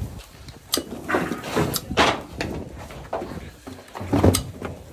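Knocks and clatter of a cattle corral as calves are moved: about half a dozen separate bangs against gates and boards.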